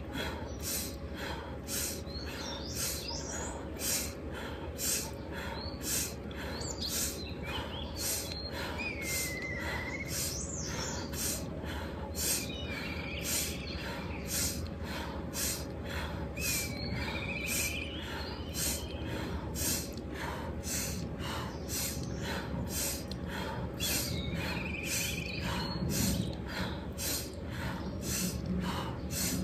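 Rapid, rhythmic forceful breathing of pranayama, quick breaths in and out about two a second, with birds chirping a few times.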